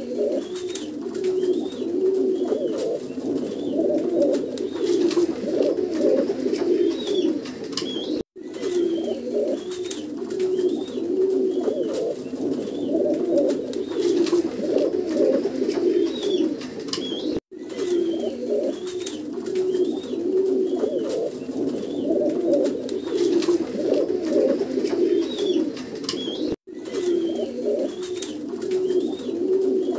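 Black mukhi (Mookee) fancy pigeons cooing continuously in low, rolling, overlapping coos. The sound cuts out for a moment three times.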